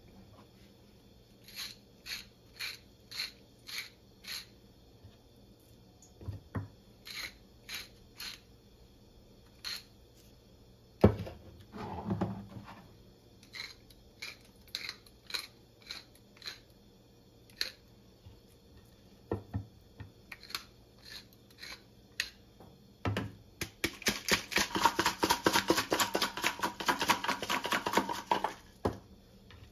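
Dry spice being shaken from a shaker jar over a raw steak: single shakes, spaced out, for much of the time, and one sharp knock partway through. Near the end comes a fast continuous rattle of about four seconds as a jar of garlic powder is shaken hard.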